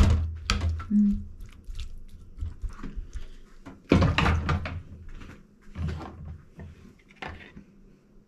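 A metal spoon knocking and scraping against a glass dish while pickled chicken feet are mixed, with several sharp knocks and dull thumps spread through.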